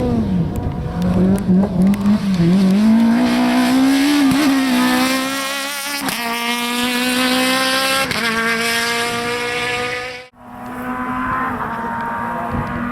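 Citroën AX Kit Car rally engine pulling hard, its note climbing through the revs, with upshifts about six and eight seconds in. The sound breaks off sharply just after ten seconds, then the engine is heard again, held steady at high revs.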